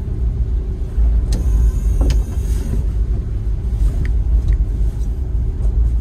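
Car cabin rumble while driving slowly on a wet road: a steady low drone of the engine and tyres, with two light clicks in the first half.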